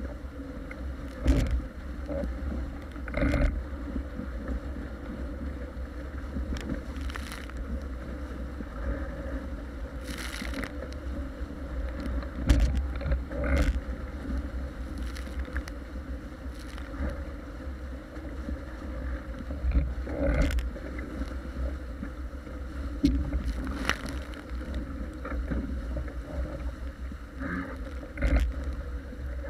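Paper Tiger catamaran hull driving through choppy water at speed: a steady rush of water with wind rumbling on the microphone, broken every few seconds by sharp slaps of waves and spray against the hull.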